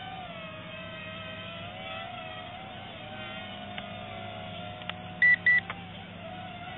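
Small toy quadcopter's electric motors whining steadily, the pitch wavering up and down, with a few faint clicks and two short, high beeps about five seconds in.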